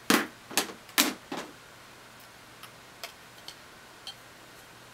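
Plastic eyeshadow palette cases being handled and set down: four sharp clicks and knocks in the first second and a half, then a few softer ticks spaced about half a second to a second apart.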